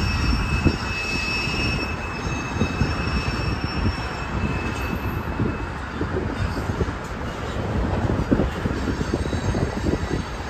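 Freight cars of a mixed manifest train rolling past, wheels rumbling and clacking over the rails, with a high steady wheel squeal through the first half that fades out about halfway.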